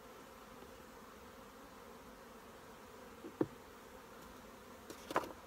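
Honeybees buzzing steadily around an open hive. A sharp click comes about three and a half seconds in and a few more clicks near the end as a honeycomb frame is levered up with a hive tool and lifted out of the box.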